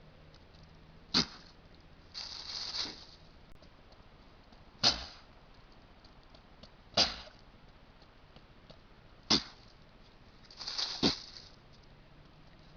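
A white-tailed deer buck sneezing in a fit: six forceful blows about two seconds apart. Four are short and sharp, and two are longer and breathier.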